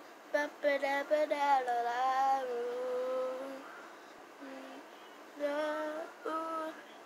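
A single voice singing with no accompaniment: a run of short notes in the first two seconds leading into a long held note, a pause, then two more short notes near the end.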